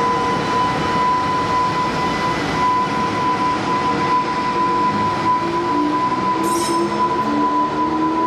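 EH500 electric freight locomotive rolling slowly past close by: steady rail and running-gear noise under a constant high whine, with a lower tone rising in pitch from about five seconds in and a brief high hiss shortly after.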